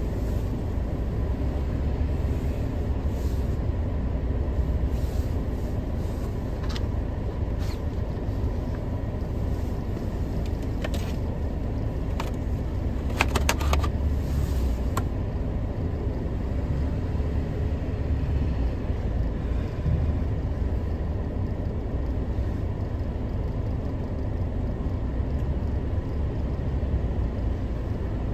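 Caterpillar 914G wheel loader's diesel engine running steadily as it carries, lifts and tips a bucket of snow into a dump truck. A cluster of sharp clattering knocks comes about halfway through, as the load drops into the truck bed.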